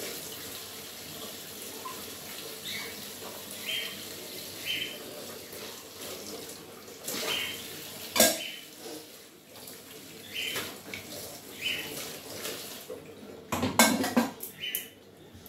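Kitchen tap running into a sink while steel and plastic dishes are rinsed and handled, with a sharp clatter of dishes about eight seconds in and a burst of clattering near the end.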